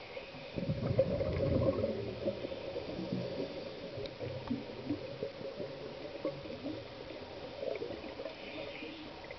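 Scuba divers' exhaled bubbles gurgling from the regulator exhaust, heard underwater. A louder burst of bubbling comes about half a second in and lasts about two seconds, then lighter bubbling carries on.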